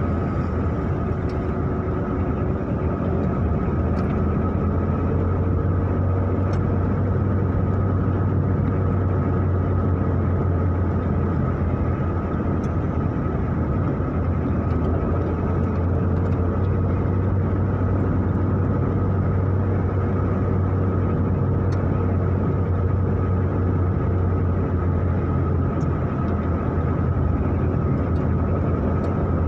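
Car engine and road noise heard inside the cabin while driving slowly: a steady, unbroken low drone with a faint constant whine above it.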